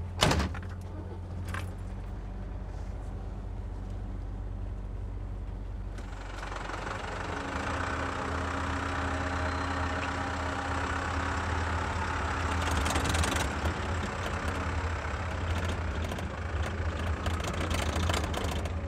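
Diesel engines of a Komatsu mini excavator and a stuck MAN tipper truck running steadily, with a sharp knock just after the start. From about six seconds in the engine sound gets louder and fuller, as the machines work under load to pull the truck, which is stuck in the mud.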